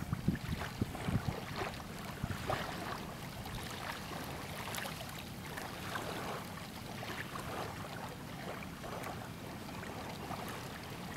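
Small sea waves lapping and splashing in irregular little bursts over a steady background hiss, with a few low thumps in the first second and a half.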